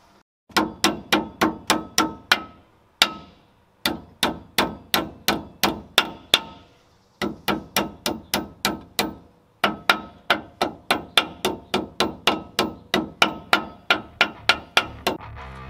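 Small sledgehammer striking a seal driver to seat an axle seal in the end of a GM 10-bolt rear axle tube: sharp metal-on-metal hits about three a second, in runs of several with short pauses, each ringing briefly.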